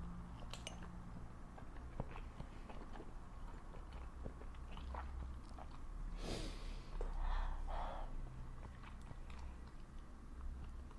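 Close-miked chewing and biting of food, with many small mouth clicks. About six seconds in comes a louder noisy burst, followed by two shorter ones.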